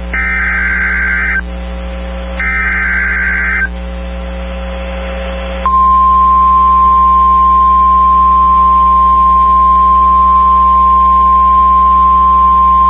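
Emergency Alert System SAME header: the last two of its three short, screechy digital data bursts, about a second apart. About five and a half seconds in, a steady single-pitch NOAA Weather Radio warning alarm tone begins, signalling that a new warning follows. A low hum runs underneath.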